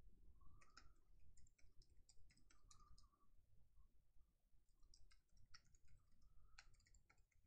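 Faint computer keyboard typing: quick runs of key clicks, with a pause of about a second midway.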